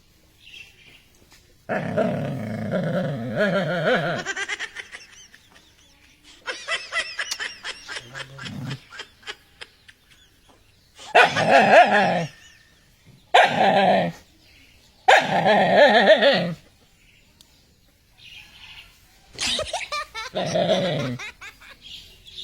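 Dog barking in several bouts, mixed with people laughing.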